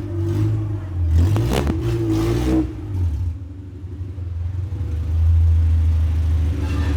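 Honda Civic coupe's engine running as the car drives. It eases off about three seconds in, then builds back up to a steady drone.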